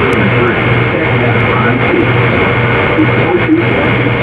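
Loud scratchy static with garbled, music-like and voice-like fragments buried in it, over a low throb that repeats about twice a second.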